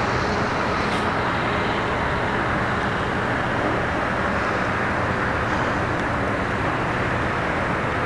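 Diesel engine of a Hitachi Zaxis 870 hydraulic excavator running steadily while the long-reach boom swings and raises its clamshell grab. It is a low, even engine hum under a constant rushing background noise.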